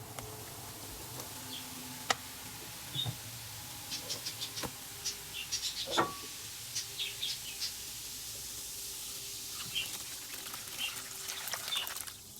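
Scattered light clicks and taps of small objects being handled, over a faint steady hiss, with a few brief high chirps like distant birds.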